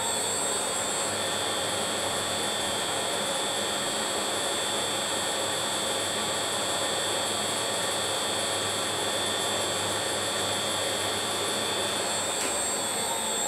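Smart and Brown 1024 lathe running in reverse at raised speed with its thread-cutting drive engaged and the cutter backed out, so nothing is being cut. A steady machine whine of motor and gearing with high-pitched tones.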